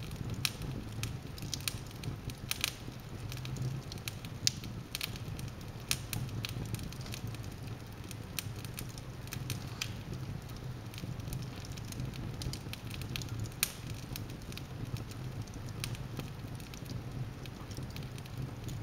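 Wood fire burning in an open fireplace, logs crackling with sharp, irregular pops over a steady low rumble.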